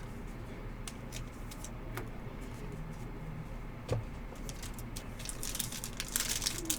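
Trading cards and packs being handled on a table: scattered light clicks, then a denser rustle and crinkle from about five seconds in.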